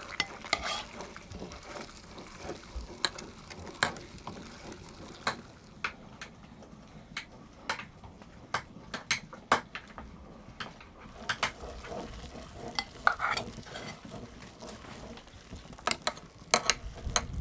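Utensils clinking and scraping against pots and dishes, in many sharp, irregular knocks.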